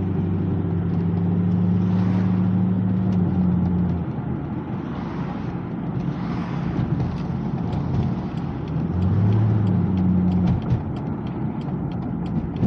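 1997 Chevrolet C5 Corvette's LS1 V8 with an aftermarket exhaust, heard from inside the cabin while driving: a steady engine drone that falls away about four seconds in as the car eases off, and rises again for a second or so around nine seconds, over road noise.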